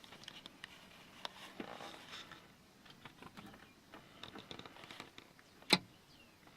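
Irregular light taps and clicks, with one sharp, much louder tap near the end.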